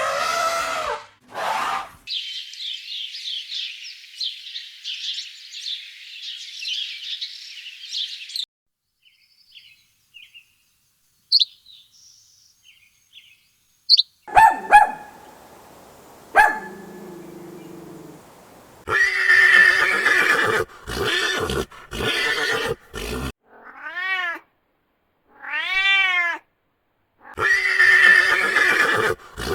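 Calls from several different animals, one after another: pitched calls, a stretch of high chirring, a few faint chirps and clicks, then a run of loud calls, two of them wavering up and down in pitch.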